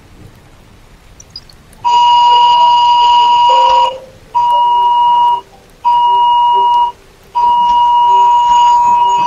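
Mobile phone emergency alert tone sounding a weather warning for heavy rain: a loud, steady, high beep that starts about two seconds in, held about two seconds, then two one-second beeps with short gaps, then another long beep.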